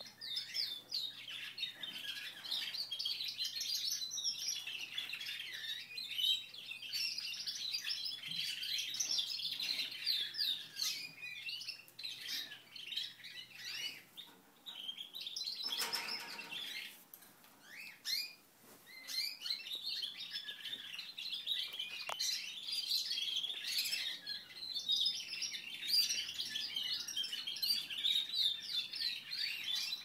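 Caged canaries singing: long, rapid warbling trills and chirps, with a lull of a few seconds about halfway through.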